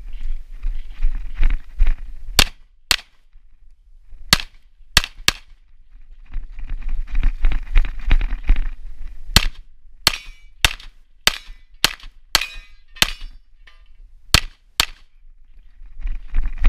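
Pistol shots during a USPSA practical-shooting stage run: about fourteen sharp shots, some in quick pairs and some in a fast string, with pauses between strings. Between the strings there is a rushing noise as the shooter moves.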